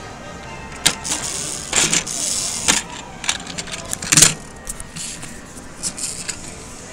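Camera handling noise: rustling and several sharp knocks, the loudest a little after four seconds, as the camera is uncovered and swung around.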